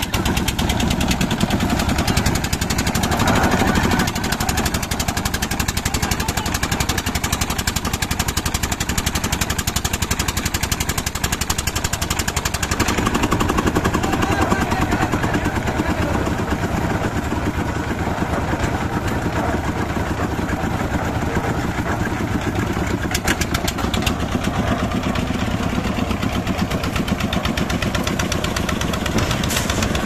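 Concrete mixer's engine running steadily with a fast, even beat, its drum turning.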